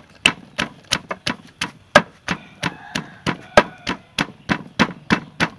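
Wooden pestle pounding whole garlic cloves in a mortar: sharp, evenly spaced thuds, about three a second.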